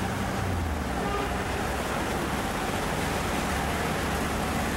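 Steady engine drone and road noise of a moving vehicle, heard from inside the vehicle.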